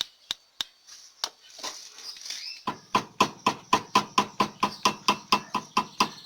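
Worn steering tie rod end and inner tie rod (axial joint) on a Fiat Uno's front end being rocked by hand. A few scattered clicks come first, then from about three seconds in a fast run of about five knocks a second. The knocking is the play in the worn joints, the cause of the front-end noise.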